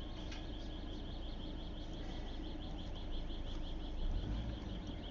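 Steady low rumble of a car running, heard from inside the cabin, with a rapid, even series of short high chirps, about seven a second, over it.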